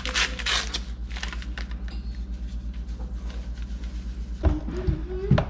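Foil drink-mix packet crinkling as it is torn open, then powder pouring into a stainless steel bowl, over a steady low pulsing hum. Near the end there is a low pitched sound with a few thumps.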